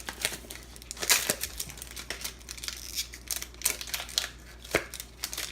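Foil wrapper of a Pokémon card booster pack crinkling and being torn open, a run of irregular crackles with a couple of sharper snaps, one about a second in and one near the end.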